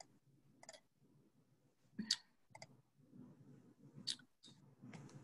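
Faint computer mouse clicks, about half a dozen, irregularly spaced.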